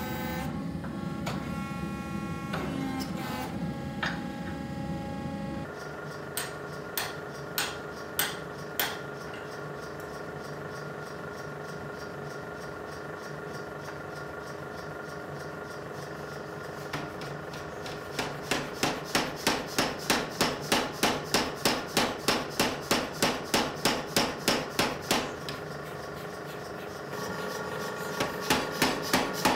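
A power hammer striking a hot steel axe head held in tongs while its eye is shaped with a drift. First a steady roar, likely the forge. Then a few single blows, a steady machine hum, a run of rapid blows at about three a second, a pause, and blows starting again near the end.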